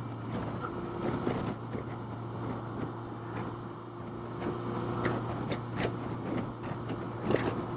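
Motorcycle engine running at a steady cruise, a constant low hum, with wind noise on the microphone and scattered light clicks.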